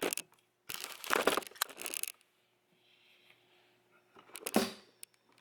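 Close handling noise: crinkling and rubbing in a spell lasting over a second, then a single sharper rustle about four and a half seconds in, with quiet room tone between.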